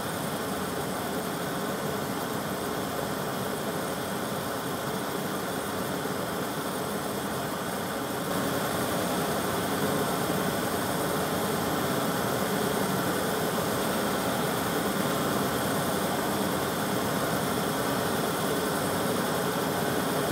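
Gas torch flames roaring steadily as they heat a woven brass lattice grille, a rushing hiss with no breaks. The sound gets louder about eight seconds in, by which point two torches are burning on the piece.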